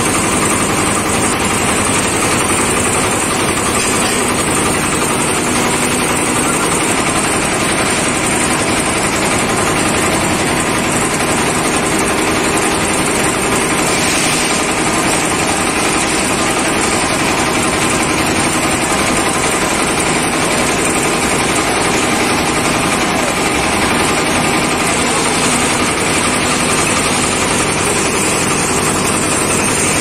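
Engine of a concrete lift mixer machine running steadily, its hum even in pitch and level throughout.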